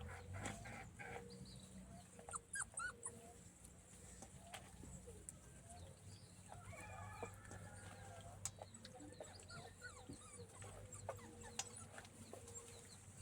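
Faint puppy yelps and whimpers, scattered short rising calls, with chickens clucking in the background.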